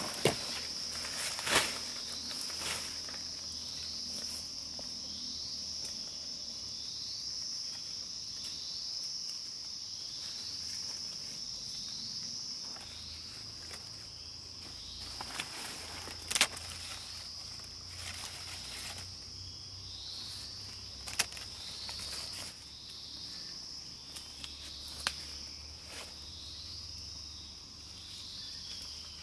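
Steady high-pitched drone of forest insects, with a short falling chirp repeating about once a second beneath it. A few sharp clicks and knocks stand out, the loudest about 16 seconds in, as sticks and plants are handled.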